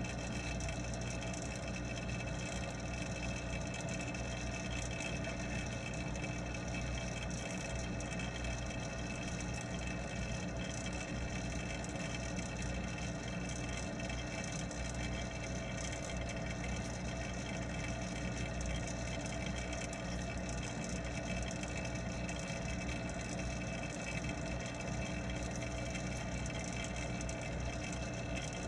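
Steady mechanical hum of the pond's water pump, heard underwater, holding several steady tones without a break.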